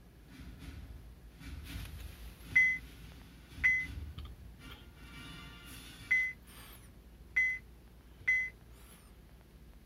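Touch-screen key beeps from a CASKA CA 3631 car video head unit: five short, identical high beeps as the screen is tapped, each acknowledging a registered touch.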